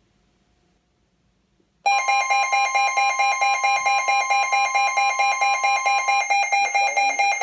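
Emergency alert tones of a NOAA Weather Radio warning. About two seconds in, a loud electronic beep starts, pulsing about four times a second, with a steady tone under it that stops about six seconds in. The tones announce the start of a new warning message.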